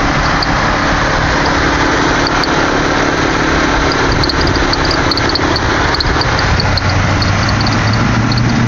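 2007 Toyota Camry SE's 3.5 L V6 running, with short high chirps coming from the engine's belt drive: scattered at first, then several a second from about halfway on. The chirping is still there after a new belt tensioner, pulley, belts and motor mount, and the owner suspects the water pump or idler pulley.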